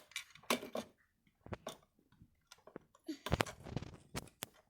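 Hard plastic toy parts clicking and knocking as they are handled and snapped onto a toy truck, in a series of short irregular clicks with the loudest knock about three and a half seconds in.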